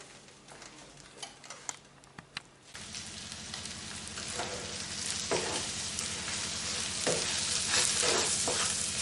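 Tomato, onion and peppers frying in olive oil in a pan and being stirred. At first it is quiet with a few light utensil clicks. About three seconds in, a loud steady sizzle starts, with a low hum beneath it, and it grows louder, broken by scrapes of the spoon against the pan.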